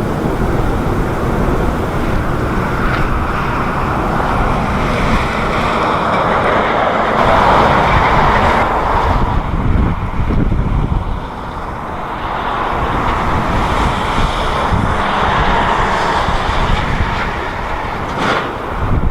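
Jet airliner engine noise swelling and fading twice, loudest about halfway through, under strong gusty wind buffeting the microphone.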